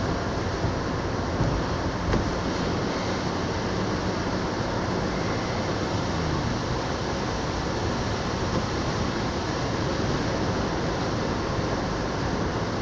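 Steady road noise inside a moving car's cabin: tyres hissing on a wet, snow-covered road along with engine and wind noise.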